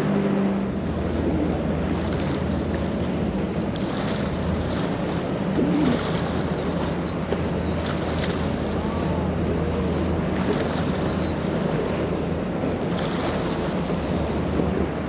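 Choppy sea and wind buffeting the microphone, under a low steady engine drone from jet skis, with a couple of short rises and falls in pitch. The steady tone of triple Mercury 300 outboards cuts off under a second in.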